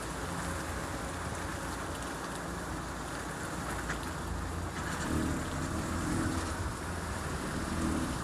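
Steady car road and tyre noise, an even rushing with no clear squeak standing out.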